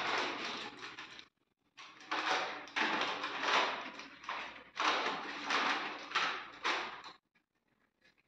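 Hands working the end cap and housing of an LED batten light to open it: irregular scraping and clicking of plastic and metal in three spells, stopping shortly before the end.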